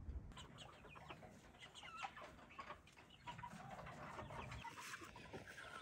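Chickens clucking and peeping faintly: many short, quick calls overlapping one another.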